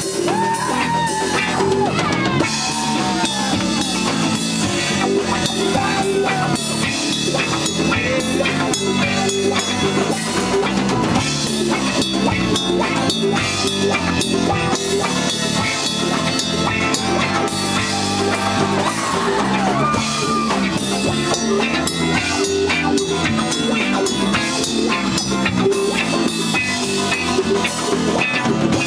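Live rock band playing: a drum kit keeps a steady beat under bass guitar and guitar, with melodic lines that bend in pitch.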